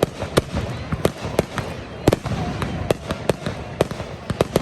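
Fireworks going off in quick, irregular succession: sharp bangs about two or three a second, the loudest about two seconds in.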